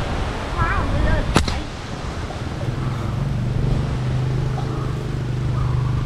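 A slingshot shot: one sharp snap about a second and a half in. A steady low hum follows from about two and a half seconds on.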